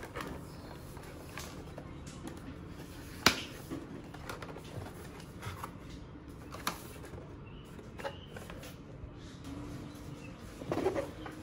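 Cardboard product box handled in the hands: scattered taps, scrapes and knocks as it is turned over. The sharpest is a single knock about three seconds in, and a cluster of knocks comes near the end.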